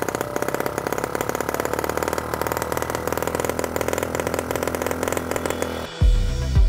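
M12 miniature single-cylinder four-stroke gasoline engine running on gasoline with a fast, even firing beat, sounding almost like a hit-or-miss engine, which the owner thinks may come from slow flame spread out of the spark plug hole in the head. About six seconds in, electronic music with a heavy bass beat takes over.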